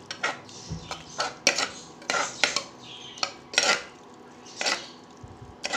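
A metal ladle stirring a thick masala in a pressure cooker, scraping against the pot's side and bottom in a string of short, uneven strokes.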